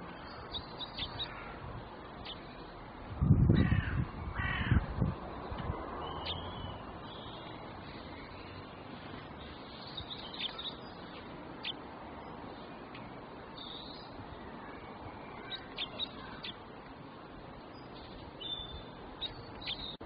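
A crow cawing, three harsh calls close together about three to five seconds in. Small birds chirp faintly throughout.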